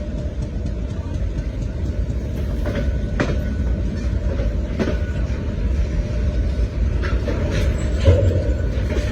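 Train running on the rails, a steady low rumble with a few sharp knocks and clanks from the wheels and cars, the loudest one near the end.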